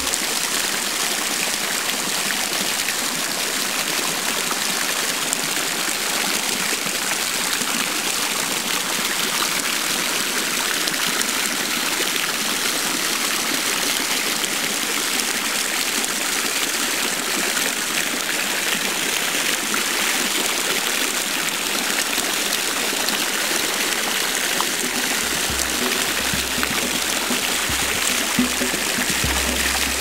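Hand-thrown stoneware urn fountain running: water flowing down the glazed sides of the vessel and splashing into the pond, a steady rushing splash.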